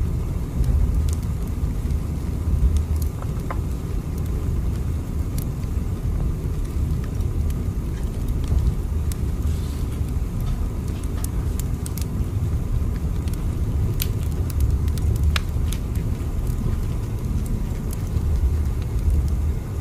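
Steady low rumble of a train in motion, with faint scattered ticks over it.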